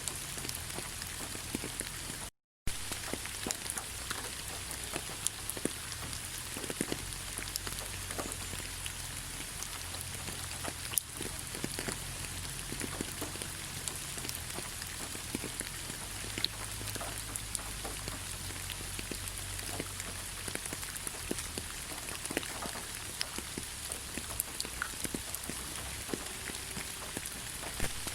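Steady rain falling, with many separate drops heard as short sharp ticks over an even hiss. The sound cuts out completely for a split second about two seconds in.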